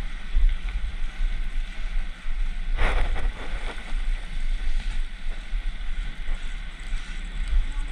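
Wind buffeting the camera's microphone: an uneven low rumble, with a short brighter rush of noise about three seconds in.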